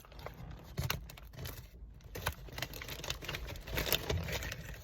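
Crinkling and rustling of a tortilla chip bag being handled, in a run of short, irregular crackles.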